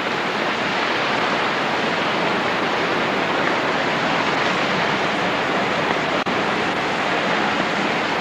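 Floodwater of Mena Creek rushing past in a steady, unbroken rush of water, with a momentary dropout about six seconds in.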